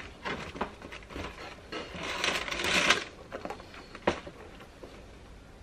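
Tissue paper rustling and a cardboard shoebox being handled as a sneaker is lifted out, loudest about two to three seconds in, with a sharp tap about four seconds in.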